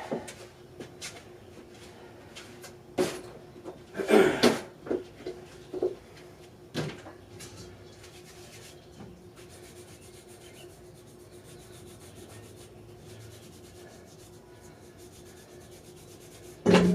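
Scattered knocks, taps and rubbing from gym equipment being handled between lifts, over a faint steady hum. The biggest knocks come a bit over four seconds in, and there is a sudden loud thump near the end.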